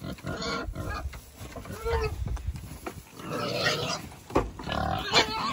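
Vietnamese potbelly pigs grunting, several short grunts spread through the moment.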